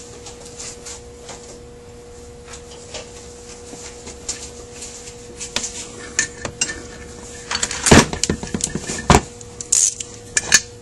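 Metal carburetor parts and hand tools clicking and clinking as they are handled on a workbench: light scattered clicks at first, then a busier run of sharper knocks in the second half, the loudest two about a second apart.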